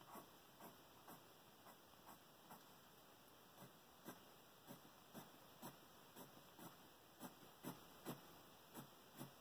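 Colored pencil strokes on sketchbook paper, faint and scratchy, repeating about twice a second as the petal is shaded back and forth.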